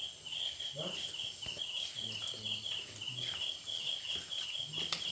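Steady high-pitched pulsing chirping, about four pulses a second, with faint short low calls like the clucking of fowl in the background.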